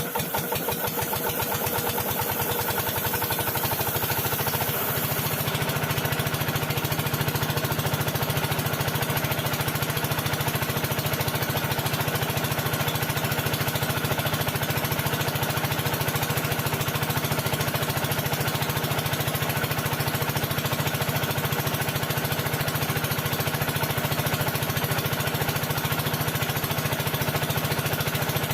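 A small engine-driven machine running steadily with a fast, even knocking beat. A high hiss sounds over it for the first few seconds.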